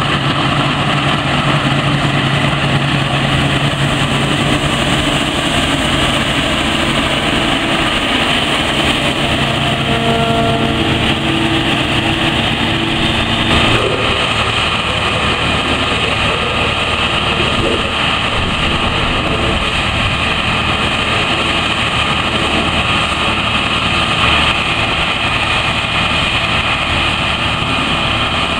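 Claas Lexion 460 combine harvester running steadily, its engine and threshing machinery working while it harvests grain. About halfway through the sound changes suddenly as the combine runs while unloading grain through its auger.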